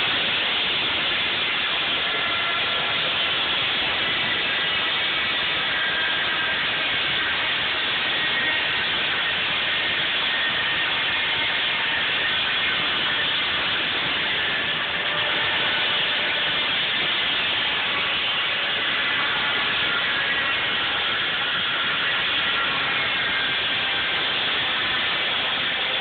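Large circular saw and machinery of a water-powered sawmill running: a steady, loud, noisy din with faint high whining tones.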